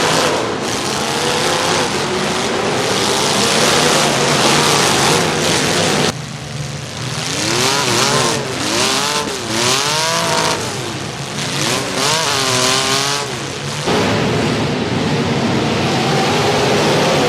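Demolition derby car engines running and revving. Through the middle stretch the pitch swings up and down in repeated revs. The sound changes abruptly about six seconds in and again a few seconds before the end.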